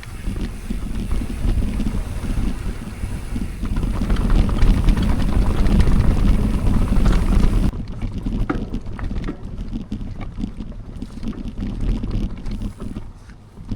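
Wind rushing over the microphone of a moving mountain bike, with rolling tyre rumble, building up and then dropping off sharply about eight seconds in. After the drop, scattered sharp clicks and rattles from the bike.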